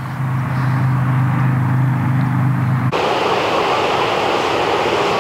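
A low engine drone that grows louder, cut off suddenly about three seconds in by a steady, loud rushing noise.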